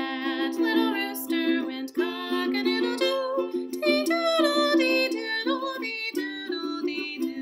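Ukulele strummed in steady repeated chords while a woman sings a children's song along with it.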